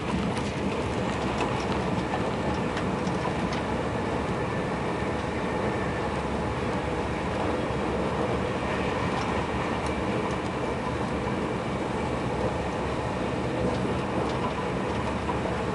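Steady running noise heard inside a TGV passenger car moving at speed, an even rumble and rush with a few faint clicks scattered through it.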